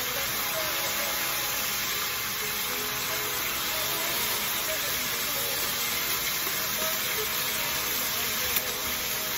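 Liver slices sizzling in oil in a frying pan, a steady hiss, with one sharp tap near the end.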